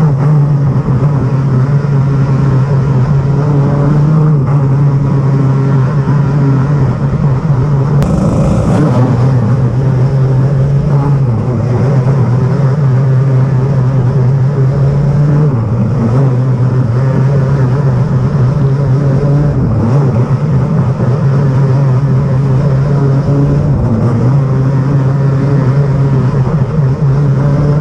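Outlaw dirt kart engine at racing speed, heard from on board the kart, running hard with its pitch dipping and climbing back every few seconds as the throttle is lifted and reapplied through the turns. Wind rush runs under it.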